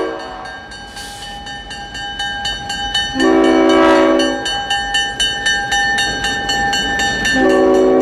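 Diesel locomotive air horn sounding from a passing first-generation four-axle road switcher: a blast about three seconds in and another starting near the end. Between the blasts a bell clangs about four times a second.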